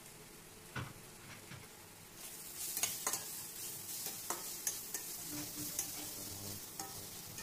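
Chopped vegetables, chicken and ground spices frying and sizzling in a stainless steel pan, stirred with a steel spatula that clicks and scrapes against the metal. The hiss of the sizzle grows louder about two seconds in.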